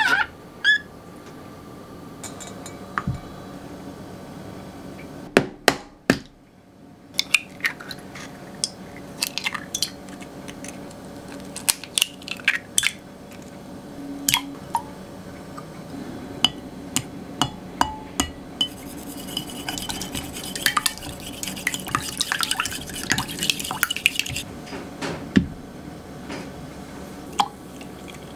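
A run of kitchen sounds at a glass measuring jug: a utensil clinking against glass as milk is stirred, then knocks and clicks as eggs are broken into the jug, then several seconds of fast, steady clicking against the glass as the eggs are beaten.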